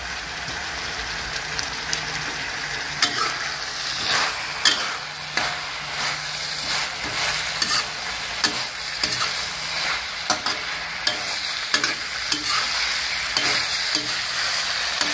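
Minced pork, long eggplant and sweet basil sizzling in a metal wok while a metal spatula stirs, scraping against the pan in irregular strokes over a steady frying hiss.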